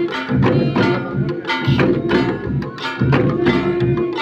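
Massed Garo drums beating a repeating Wangala dance rhythm, the pattern coming round about every second and a third, with a steady held note sounding over it at times.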